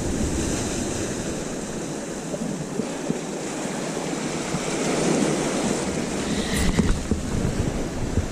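Sea waves washing against a rocky shore, with wind buffeting the microphone, as a steady rushing noise.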